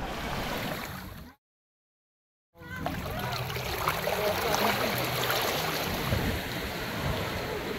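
Small waves lapping and washing over shoreline rocks, a steady splashing wash. It cuts out into dead silence about a second and a half in and resumes a second later.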